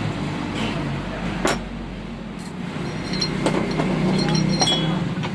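Metal tools and parts clinking and tapping several times, mostly in the second half, over a steady low hum.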